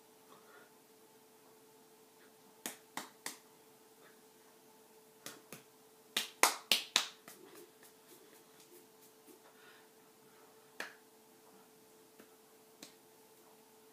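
Hands slapping and tapping together while signing in American Sign Language: scattered sharp claps, with a quick run of the loudest ones about six to seven seconds in, over a faint steady hum.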